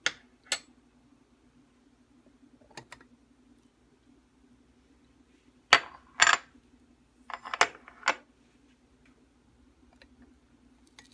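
Sharp clinks and knocks of a ceramic tea mug, its ceramic lid and a stainless-steel infuser being handled on a countertop: two clicks at the start, one near three seconds in, and a loudest run of several clinks about six to eight seconds in. A faint steady hum lies underneath.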